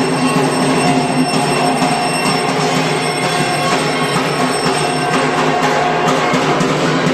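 Background music with sustained, steady tones.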